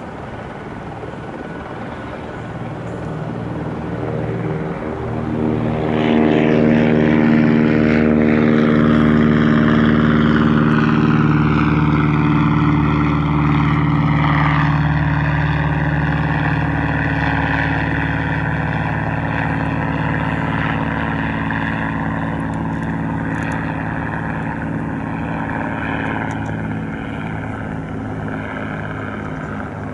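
Single-engine propeller light aircraft flying past. Its engine-and-propeller drone swells over the first few seconds and drops in pitch as the plane goes by, a third to half of the way in. It then carries on as a steadier drone that slowly fades.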